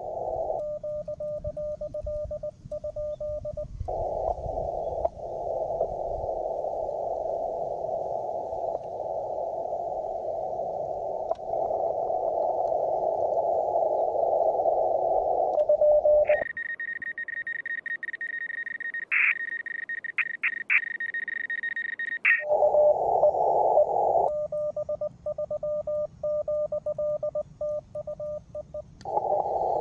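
Amateur radio transceiver receiving Morse code: a steady beeping tone keyed on and off over receiver hiss. For about six seconds partway through it gives way to a higher, steadier tone broken by a few short blips.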